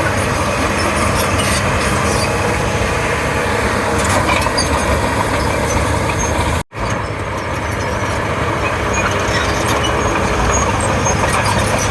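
Komatsu D31P bulldozer's diesel engine running steadily while working, with faint scattered clicks and clinks of the machine over it. The sound cuts out for an instant a little past halfway, then resumes.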